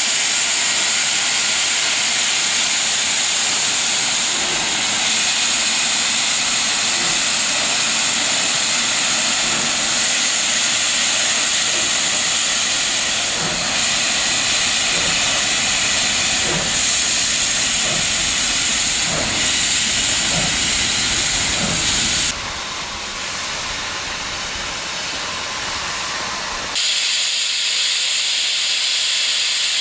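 Class 15CA and 25NC steam locomotives hissing loudly with escaping steam, with faint low irregular thuds underneath in the middle. The hiss drops abruptly about 22 seconds in and comes back, thinner, a few seconds before the end.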